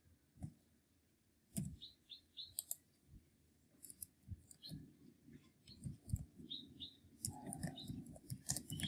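Faint, irregular clicking of a computer keyboard being typed on, with a few mouse clicks.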